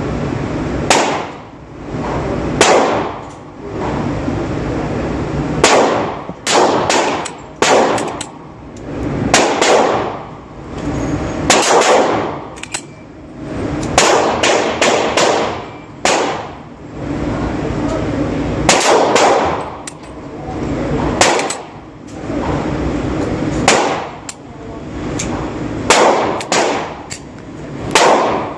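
Glock 20 10mm Auto pistol being fired, about two dozen shots at an uneven pace, some single and some in quick runs of two to four, each crack followed by a short ringing echo.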